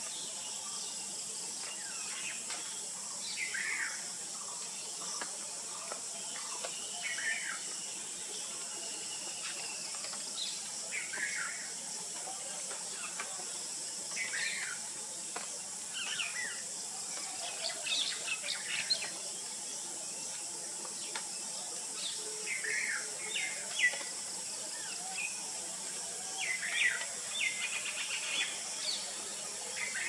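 Rose-ringed parakeet giving short, shrill calls again and again at irregular intervals, more often in the second half, over a steady high hiss.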